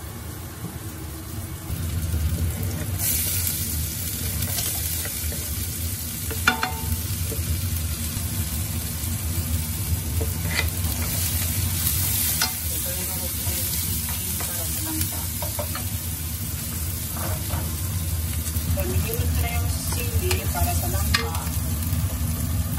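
Garlic, onion, chili and small fish sizzling in hot oil in a non-stick pan, stirred with a wooden spatula. The sizzle comes up about two seconds in as the ingredients go into the pan, with scattered scrapes and taps of the spatula.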